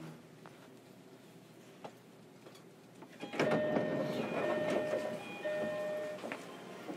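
Inside a JR Kyushu 305 series electric train car: quiet at first, then about three seconds in a loud rush of noise with steady high tones for about three seconds, the tones breaking off briefly once.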